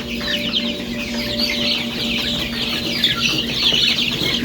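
A brood of young chicks peeping rapidly and continuously in many short, high, falling notes, over a steady low hum.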